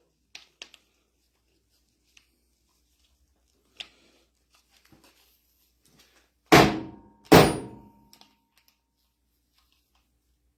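Two loud metallic knocks about a second apart, the second leaving a short ringing tone, with a few faint tool clicks before them, as metal parts are worked loose from a hydraulic control valve.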